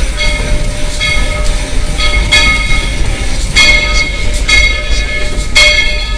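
Steam locomotive No. 190 running, heard from inside the cab with a steady low rumble. Over it the engine's bell rings about once a second, each stroke ringing out and fading.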